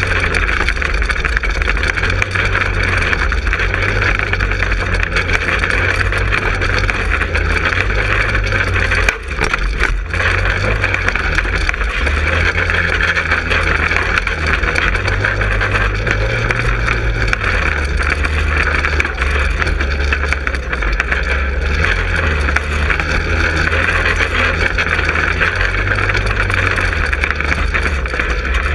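Go-kart's small four-stroke engine running under way, its revs rising and easing in steps, with a steady hiss over it. The sound drops briefly about nine seconds in.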